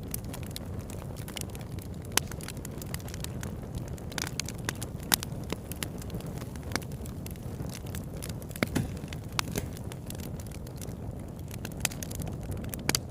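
Bonfire burning: a steady low rumble of flames with irregular sharp crackles and pops of burning wood, a few louder pops standing out.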